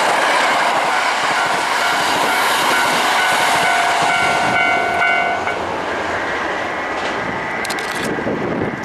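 Hankyu Kyoto Line electric train passing close by: a loud steady rush of wheels on rail with some steady tones on top, easing a little about five and a half seconds in.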